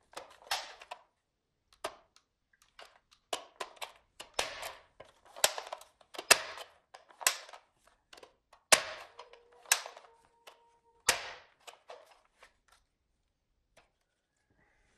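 Plastic toy pistol being handled and worked: a string of plastic clicks and clacks, with several sharper snaps from about five to eleven seconds in.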